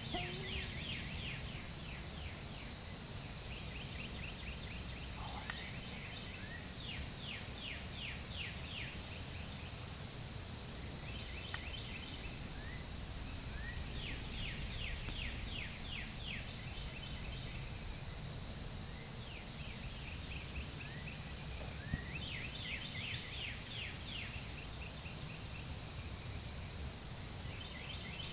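Birds singing: about seven separate runs of quick down-slurred notes, each lasting one to three seconds, over a steady high-pitched whine and faint low outdoor rumble.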